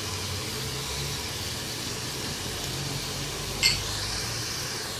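Beef and spice masala with fresh yogurt sizzling steadily in an aluminium pressure cooker pot over a gas flame, with a single sharp clink against the pot about three and a half seconds in.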